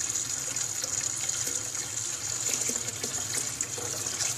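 Water running steadily into a large cooking pot as it is filled.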